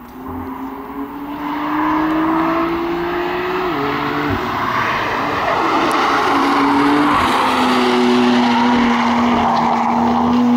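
BMW M3 (F80) sedan's twin-turbo straight-six engine accelerating on a track as the car approaches, getting louder over the first couple of seconds. The engine note climbs, drops sharply about four seconds in and again about seven seconds in, then rises steadily.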